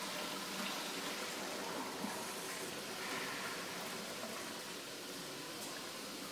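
Flush water running steadily through a porcelain urinal, an even rushing hiss that eases off slightly towards the end.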